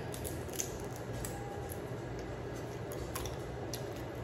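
Cooked blue crab being picked apart by hand: a few faint, scattered clicks and snaps of shell over a steady low background hum.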